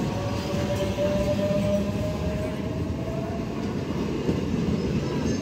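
Electric MEMU passenger train rolling past close by: a steady rumble of the coaches and their wheels on the track. A faint, slightly falling whine runs through the first half.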